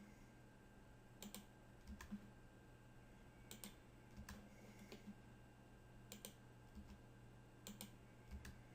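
Faint, scattered clicks of a computer mouse and keyboard, about nine in all, over a low steady hum.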